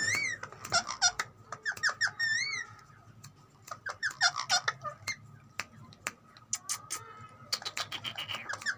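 Green ringneck parrot giving a run of short squeaky chirps and whistles that bend up and down in pitch, with sharp clicks among them and a brief lull about three seconds in.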